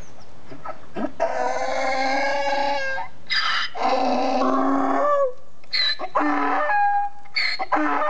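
Donkey braying with a high, squeaky call: after about a second, long drawn-out squeals, then quicker short hee-haw cycles about twice a second near the end.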